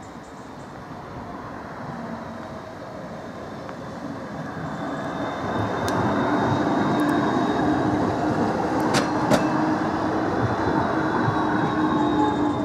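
Croydon Tramlink Bombardier CR4000 tram approaching and passing close by, its running noise growing louder over the first few seconds, with a steady high whine and a low hum. Two sharp clicks come about nine seconds in.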